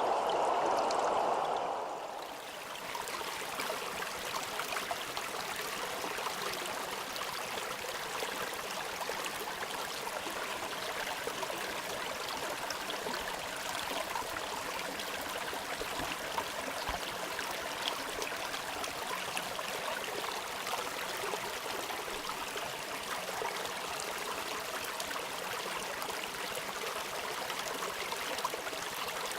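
A stream trickling and babbling steadily, with many small splashes and drips. Over the first two seconds a louder, fuller rush of water fades out as the trickle takes over.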